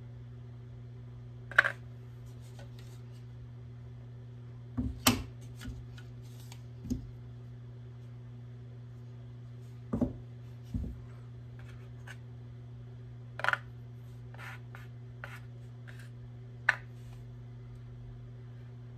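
Small pistol parts being handled and set down: about ten scattered clicks and light knocks, the sharpest near the start and near the end, over a steady low hum.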